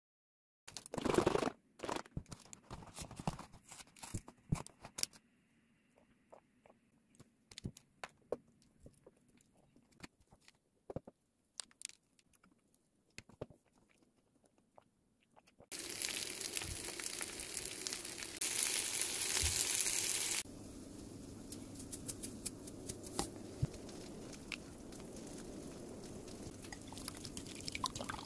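Close-up eating sounds: a plastic wrapper crinkling, a fork clicking on a paper tray and the chewing of corn chapssal-ppang, in scattered sharp clicks and crackles. About halfway through these give way to a steady background noise, with a louder rush lasting about two seconds and then scattered clicks.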